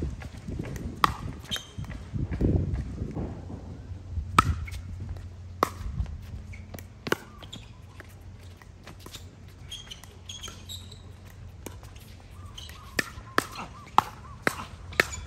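Pickleball paddles hitting the hollow plastic ball in a doubles rally: sharp pops every second or so, quickening to about two a second near the end.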